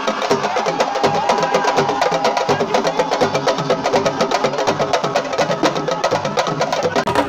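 Sabar-style drumming: a fast, dense rhythm of sharp drum strokes. A brief held high note sounds over it about a second in.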